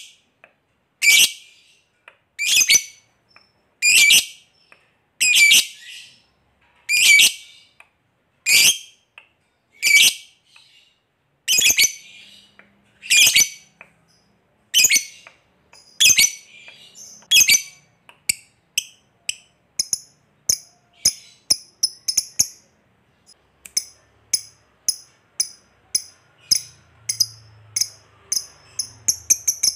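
Lovebird calling: loud, sharp single calls about every second and a half. From about two-thirds of the way through they give way to shorter, quieter ticking calls that speed up toward the end. This is the 'koek' then 'ngetik' build-up that leads into a lovebird's long chattering 'ngekek'.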